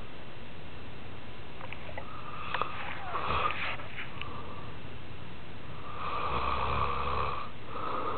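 A man snoring in his sleep: one snore about three seconds in, a longer one about six seconds in, and another starting near the end, over a steady hiss, with a few faint clicks before the first snore.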